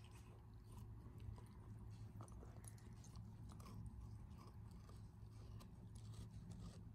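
Alaskan malamute puppy gnawing on a frozen carrot: faint, irregular crunching and clicking of teeth on the hard carrot, over a low steady hum.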